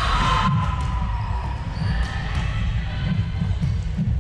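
A volleyball rally on an indoor wooden court: a couple of sharp ball hits about two seconds in, with players' footsteps on the floor, echoing in the large hall.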